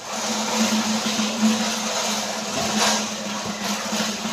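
A steady machine hum under a hiss, with a couple of sharp knocks from cardboard cartons being handled and stacked.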